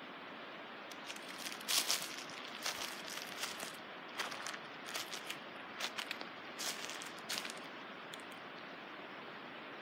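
Irregular rustling and crackling close to the microphone over a steady hiss, in a run of short bursts from about a second in until near the end, loudest about two seconds in.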